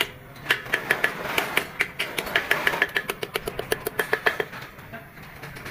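Small hammer tapping a steel bearing race in the hub of a brake drum: a quick run of sharp metal-on-metal taps, several a second, coming fastest in the middle.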